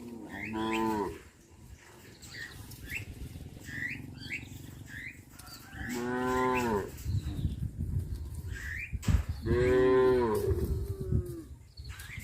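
Cows mooing: three separate moos, the first about half a second in, the second around six seconds in, and the third, the loudest and longest, near ten seconds.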